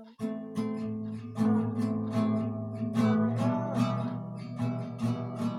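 Acoustic guitar strummed in the song's six-stroke pattern (down, down, up, up, down, up) on open minor chords.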